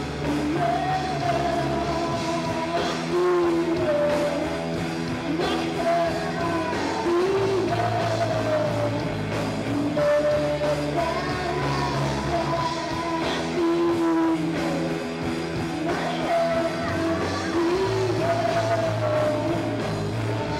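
Rock band playing live: a woman singing the lead over electric guitar.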